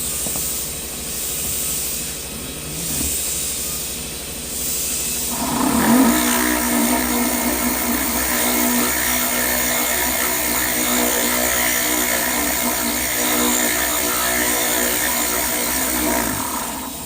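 Power drill boring into very hard stone. A hissy grinding gives way about five seconds in to a loud, steady, high whine of the bit cutting, which holds until it stops near the end. The stone is so hard that the drilling goes slowly.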